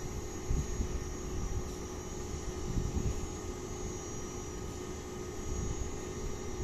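Diesel engine of a new CC 205 (GT38ACe) diesel-electric locomotive idling, a steady low rumble with a constant hum.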